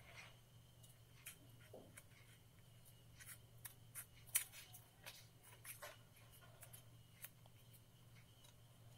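Small handheld scissors snipping a round out of a scrap of coloured paper: a string of faint, short snips at an uneven pace, the loudest about four and a half seconds in.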